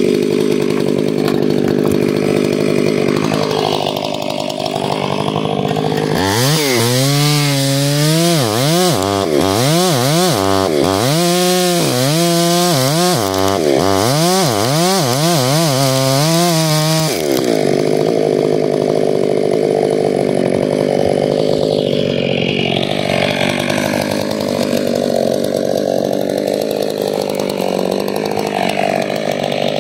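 Stihl 500i fuel-injected two-stroke chainsaw running steadily at first. From about six seconds in it cuts into a standing tree trunk for roughly ten seconds, the engine speed rising and falling again and again under load. It then settles back to a steady run.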